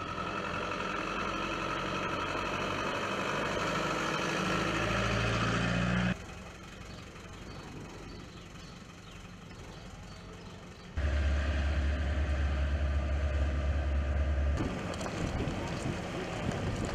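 A motor vehicle's engine running steadily. Its sound changes abruptly several times, with a loud steady low hum for a few seconds in the latter half.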